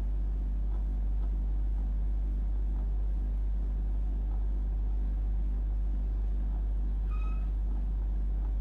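Steady low hum at an even level, with one brief higher-pitched tone about seven seconds in.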